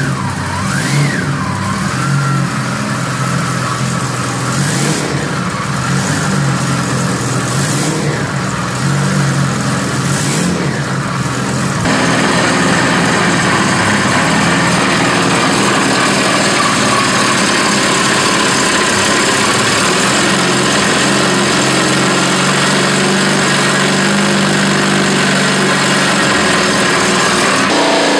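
Three-bank, 12-rotor, naturally aspirated R12 rotary engine running on an engine stand. The sound changes abruptly about twelve seconds in, where a different recording of the same engine takes over.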